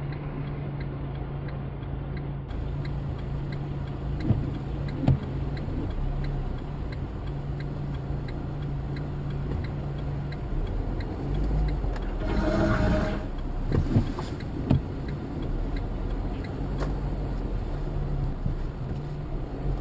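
Car interior noise picked up by a dashcam in slow, wet traffic: a steady low engine and road hum, with a light ticking repeating at an even pace. About twelve seconds in a brief, louder rushing sound passes.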